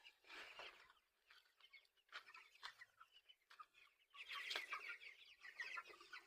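Faint, scattered calls of a flock of three-week-old broiler chickens, in short bursts about half a second in, around two to three seconds in, and more steadily in the second half.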